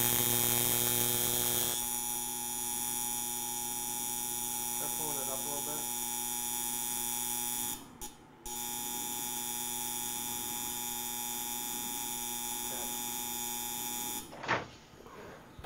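Arc Pig high-frequency starter on a Lincoln AC 180 buzz box sparking from a TIG torch's tungsten to an aluminum plate: a steady mains-pitched buzz with many overtones, showing the high frequency is working. It breaks off for a moment about eight seconds in, resumes, and cuts off about a second before the end.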